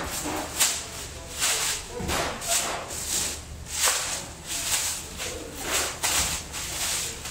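Large plastic sheet rustling and crinkling in repeated irregular bursts as it is pulled and folded around a mass of dough.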